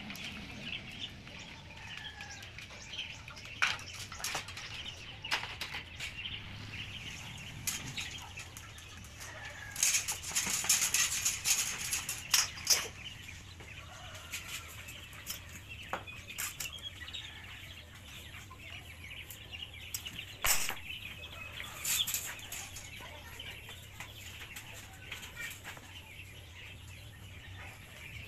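Intermittent handling noises of hand tools and aluminium edging on plywood: scattered clicks and knocks, with a louder scraping stretch about ten to thirteen seconds in.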